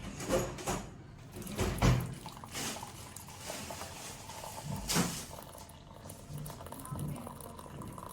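A series of sharp knocks and clatters, the loudest about two seconds in and another about five seconds in, over low room noise.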